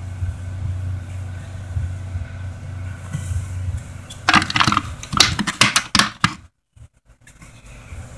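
Clear plastic cover of a fused battery bus bar handled and fitted back into place: a quick run of plastic clicks and rattles about four seconds in, lasting about two seconds, over a steady low hum.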